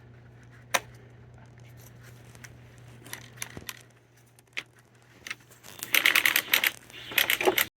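Metal bolts clicking and clattering as they are handled and dropped into buckets: scattered single clicks, then two quick runs of rapid metallic rattling near the end.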